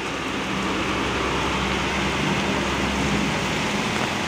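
A bus's diesel engine running with a low, steady rumble as the bus drives past close by, over the even hiss of very heavy rain on the road.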